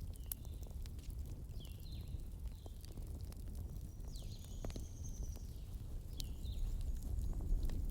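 Wood campfire burning with a steady low rumble and scattered crackles, ending in a sharp pop. Short high chirps from birds come and go, with one longer whistle about halfway through.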